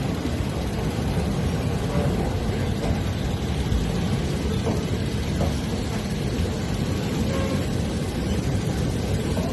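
Passenger train running: a steady low rumble and rattle of the moving carriage.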